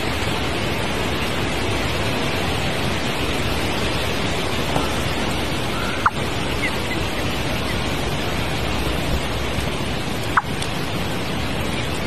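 A steady, loud rushing hiss like running water or wind, with a few faint, short high chirps and two brief clicks, about six and ten seconds in.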